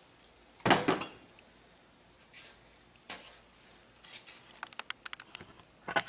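Workshop handling noises: a short knock about a second in with a brief high metallic ring after it, then a quick run of light clicks near the end.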